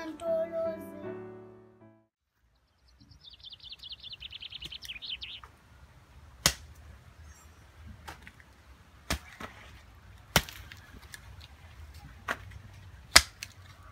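Hand hoe chopping into soil: about five sharp strikes, irregularly spaced a second or two apart. Before the first strike a bird gives a rapid high trill, and background music with singing fades out in the opening seconds.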